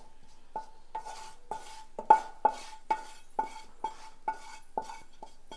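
A metal spoon stirring in a metal vessel, striking the side in a steady rhythm of about two knocks a second, each knock ringing briefly.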